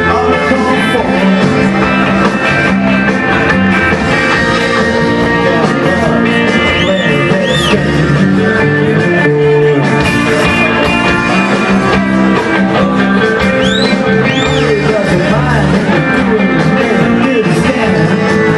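Blues band playing live: electric guitar over drums and a steady low bass line, loud and continuous, with two pairs of short high bent notes about seven and fourteen seconds in.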